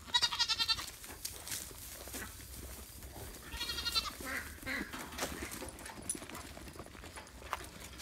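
Does (female goats) bleating to be fed: a high, wavering bleat right at the start and another about three and a half seconds in, with a fainter call just after, over light footsteps crunching on dry leaves.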